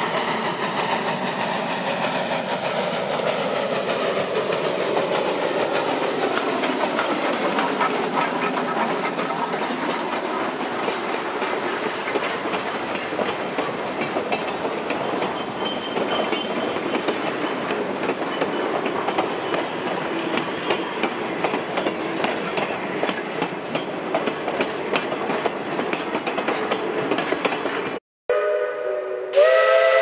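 Steam-hauled freight train passing close by: the locomotive's exhaust and running gear, then the freight cars' wheels clicking steadily over the rail joints, with a falling pitch about five to nine seconds in. After a brief break near the end, a multi-chime steam whistle starts blowing a steady chord.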